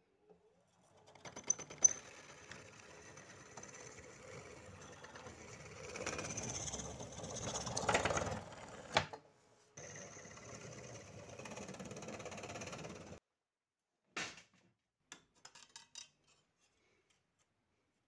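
Bench drill press running and drilling through a thin perforated steel plate. It runs in two stretches, the first louder as the bit bites near its end, the second cut off sharply. A short knock and a few light ticks of metal being handled follow.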